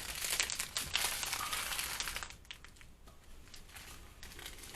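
Small plastic bags of diamond painting drills crinkling as they are handled and sorted, dying down to faint rustles about halfway through.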